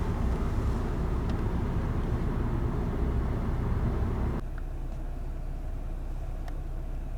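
Steady low road rumble of a vehicle driving, heard from inside the cabin, dropping suddenly to a lower level about four and a half seconds in.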